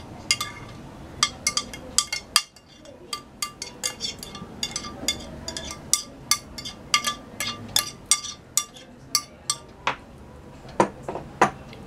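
A metal spoon clinking and scraping against a glass container as soaked sago pearls are pushed out into a glass bowl: a long run of sharp, lightly ringing clinks, two or three a second, then three louder knocks near the end.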